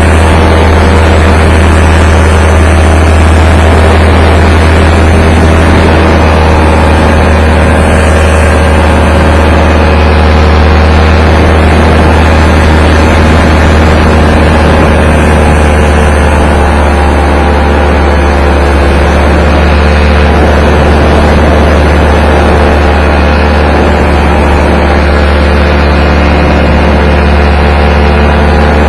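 Paramotor engine running steadily at a constant speed, its pitch wavering slightly, under a heavy low rumble of strong wind on the microphone.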